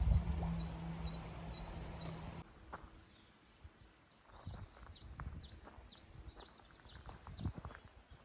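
A songbird singing two quick runs of repeated high, down-slurred notes, the second beginning about halfway through. A low steady hum lies under the first two seconds or so and cuts off abruptly, leaving faint scattered ticks.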